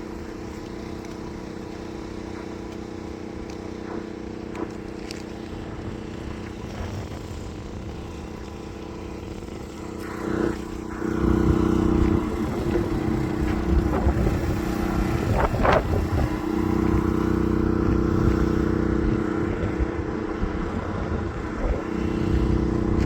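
DJI agricultural drone's rotors humming steadily with a held multi-tone whine, growing clearly louder about eleven seconds in and wavering in pitch after that.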